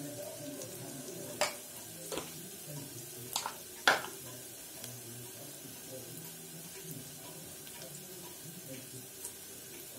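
Onions and spices frying in oil in a pressure cooker, a faint steady sizzle. In the first four seconds a spoon knocks sharply against the pot four times as spice powder goes in, the last knock the loudest.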